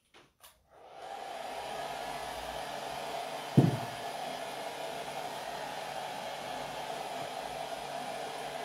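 Hand-held hair dryer starting up about a second in after two faint clicks, then blowing steadily. A single short thump about three and a half seconds in is the loudest moment.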